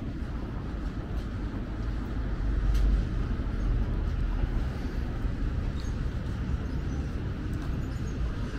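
Steady low rumble of road traffic on a busy city avenue, swelling about three seconds in, with a few faint clicks.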